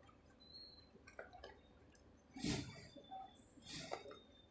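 Faint handling sounds of a cardboard product box being picked up and turned over: light rustles and taps, with one louder knock about two and a half seconds in.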